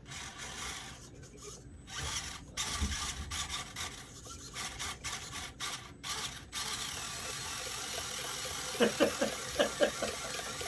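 Small electric motor and plastic gears of a 1/24-scale Axial SCX24 crawler whirring in short stop-start bursts, then running steadily, as the truck strains against an obstacle it is hung up on. A few quick clicks come near the end.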